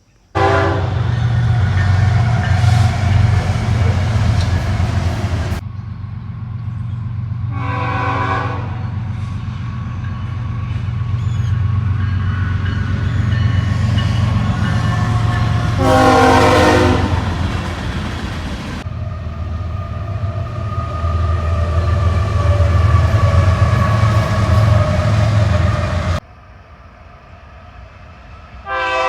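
A train passing close by, its low heavy rumble running throughout, with the train horn blowing several long blasts: near the start, about a third of the way in, about halfway, and again at the end.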